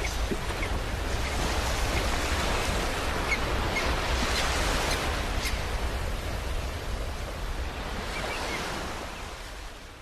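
Sea surf washing onto a beach, a steady noisy wash with a deep rumble underneath that swells and eases, fading out near the end.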